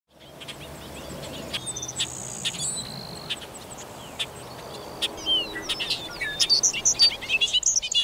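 Bobolinks and other grassland birds singing: scattered chirps and whistles that fade in at the start and grow busier in the last couple of seconds.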